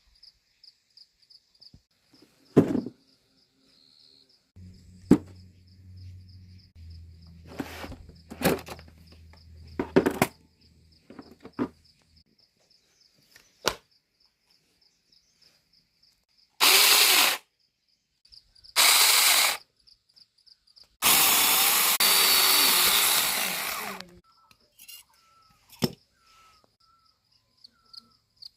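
Insects, crickets by their sound, chirp in a steady fast pulse throughout, with scattered sharp knocks and clicks and a low hum in the first half. About halfway through come three loud hissing rushes, two short and one lasting about three seconds.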